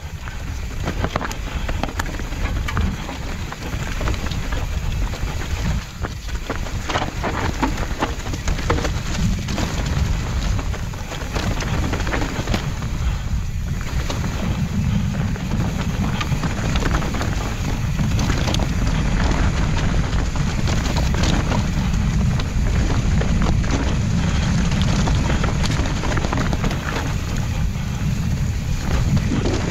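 Mountain bike rolling down a dirt trail: wind buffeting the microphone and tyre noise, with frequent small knocks and rattles from the bike over bumps and roots. The buffeting grows heavier from about halfway through.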